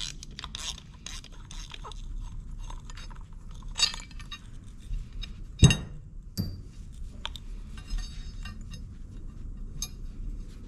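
Bolts and hand tools clinking and clattering as hardware is handled, with one sharp, ringing metal clank a little past halfway and a smaller knock just after.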